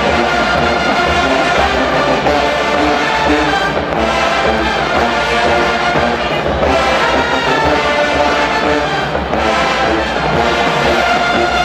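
College marching band's brass section playing loud sustained chords, with short breaks between phrases about 4, 6.5 and 9 seconds in.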